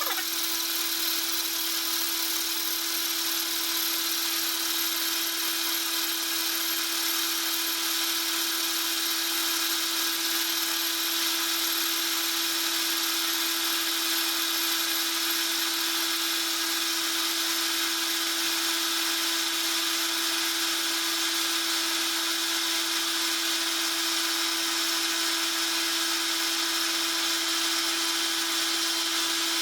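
Metal lathe running steadily with an even hum, taking a very slight facing cut across a half-inch steel plate.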